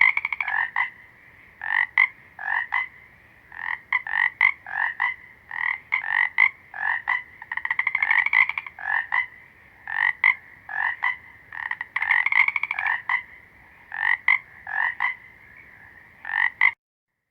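Frogs croaking in a chorus: a quick run of short croaks mixed with several longer, rapidly pulsing calls. It cuts off abruptly near the end.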